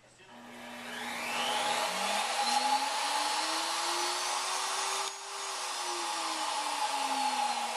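Single-speed router motor, run as a CNC spindle through a Super-PID speed controller, spinning up from rest with a rising whine over about two seconds and then running at speed. About five seconds in the sound dips briefly and the whine's pitch starts to sink slowly as the controller changes the speed.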